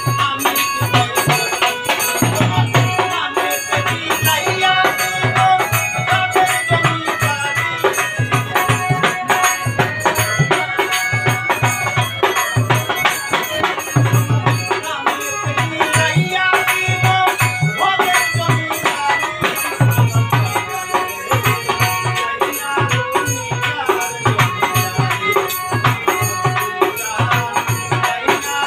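Live Bengali folk song: a man sings with harmonium accompaniment over a steady hand-drum beat and rattling percussion.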